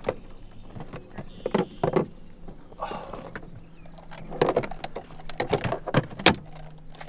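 Irregular sharp knocks and rattles of gear being handled on a fishing boat, like a storage box lid being opened and its contents rummaged through, over a faint low steady hum.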